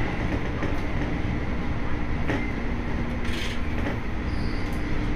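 Electric commuter train running along the line, heard from inside behind the driver's cab: a steady rumble of wheels on rail with a faint even hum. A couple of sharp clicks come about two and three seconds in.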